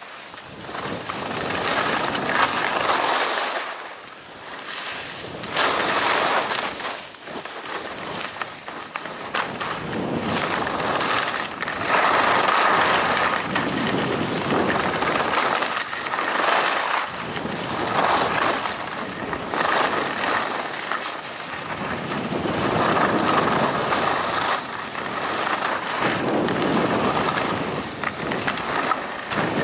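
Skis hissing and scraping over snow through a run of turns, the noise swelling and easing every few seconds, with wind on the microphone.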